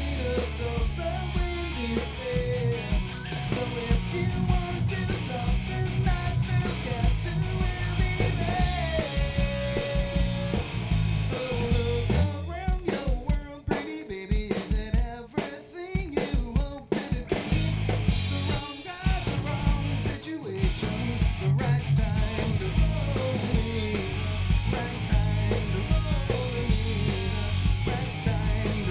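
Live rock band playing: electric guitars, bass guitar and drum kit. About twelve seconds in the band drops to stop-start hits for a few seconds, then comes back in full.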